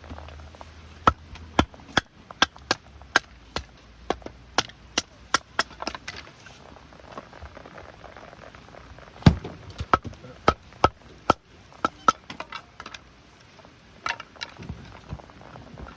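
Wood being chopped or split. It is a run of sharp knocks, about two to three a second, that pauses and picks up again with one heavier blow about nine seconds in, then a few more strikes.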